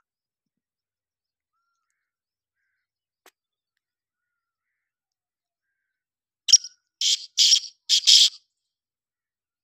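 Black francolin calling: one short phrase of about five harsh, rasping notes in quick succession, starting about six and a half seconds in.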